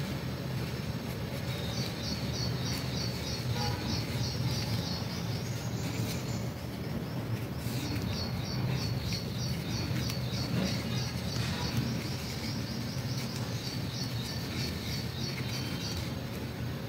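High-pitched chirping from a small animal, repeated rapidly at about four chirps a second in runs several seconds long, over a steady low hum.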